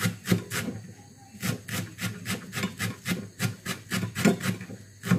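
Knife chopping fresh coriander on a cutting board: quick knocks of the blade on the board, about five a second, with a short pause about a second in.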